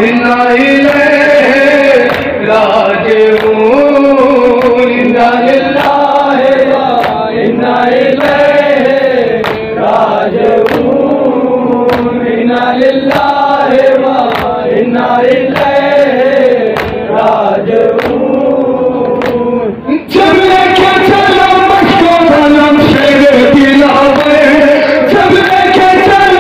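A group of men chanting a Shia mourning lament (nauha) in unison through a PA system, the melody rising and falling, with regular sharp slaps of chest-beating (matam) keeping time. About twenty seconds in the sound drops out for a moment and comes back fuller.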